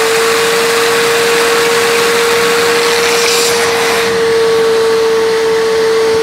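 Bissell Little Green ProHeat portable carpet cleaner running, its motor whining at a steady pitch over a rush of suction air, as it flushes cleaning solution down its hose through the hose rinse tool.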